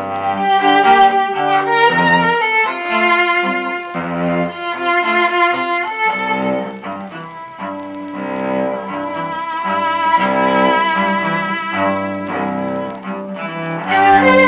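Live music: a violin playing a melody over low held notes.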